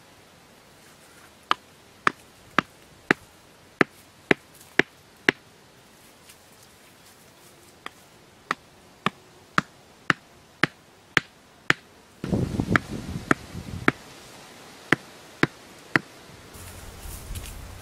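Bamboo stakes being hammered into the ground: sharp knocks about two a second, in runs of around eight with short pauses between. A burst of rustling and scraping comes a little past halfway, with a few more knocks after it.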